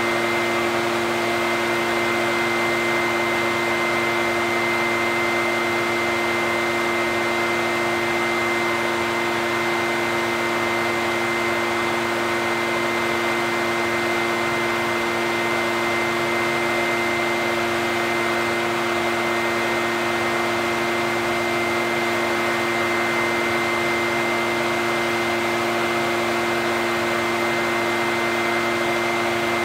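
Echo backpack leaf blower's two-stroke engine running at a constant speed while the blower pushes a steady rush of air, with an unchanging hum and a thin high whine.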